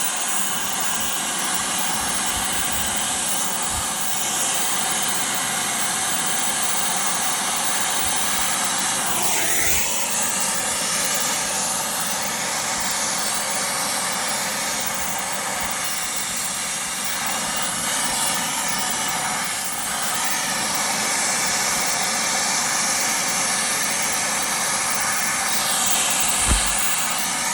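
Brazing torch flame burning with a steady hissing rush while it heats a copper refrigerant joint on a replacement compressor.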